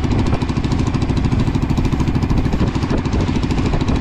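Small boat's engine running steadily under way, a rapid, even chugging.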